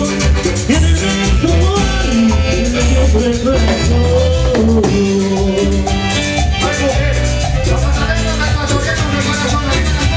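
Live Latin dance band playing, with a steady bass and percussion beat under a gliding melodic line.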